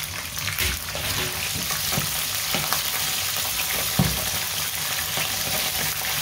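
Semi-dried squid strips sizzling in hot oil in a wok, with metal tongs knocking against the pan as the pieces are turned; the sharpest knock comes about four seconds in.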